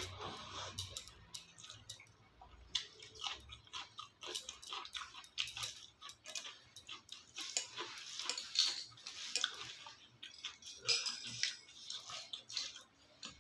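A person eating close to the microphone, here a meal of rice with paneer and potato curry and cucumber: chewing and wet mouth sounds, with many short, irregular clicks and smacks.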